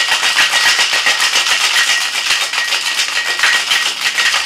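Ice cubes rattling inside a metal Boston cocktail shaker that is being shaken hard: a fast, even rattle of clicks. This is a cocktail being shaken over ice to chill it.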